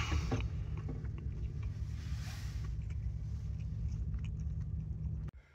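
Low, steady rumble of a car heard from inside its cabin, cutting off suddenly near the end.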